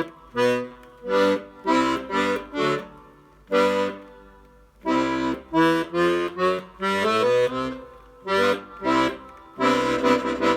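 Hohner Student 72 accordion, freshly repaired, playing a run of short detached notes and chords. The notes thin out to a single stroke in the middle of the stretch, then come quickly again, and a chord is held near the end.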